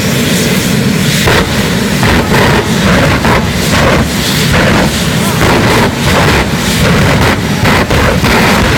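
Two jet dragsters' jet engines running at high power with afterburners lit: a loud, continuous rush broken by irregular rapid cracks and pops.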